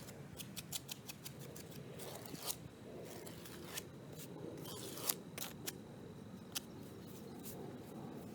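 Irregular sharp snips and clicks of a hand tool close by, a few a second at most, with a faint steady high tone in the background over the second half.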